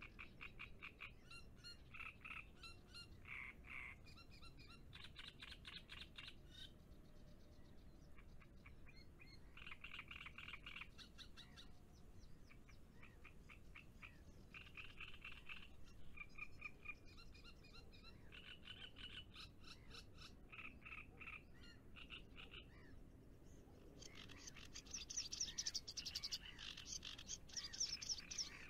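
Frogs croaking in short bouts of rapid pulses, one bout after another, with the loudest and highest-pitched bout near the end.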